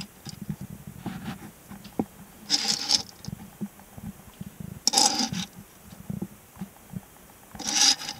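A diecast model stock car being turned and slid by hand on a wooden tabletop: three short rubbing scrapes, with faint small knocks between them.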